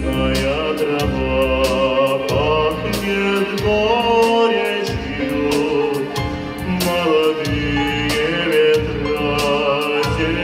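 A young man singing a song into a handheld microphone through the hall's sound system, over instrumental accompaniment with a steady beat.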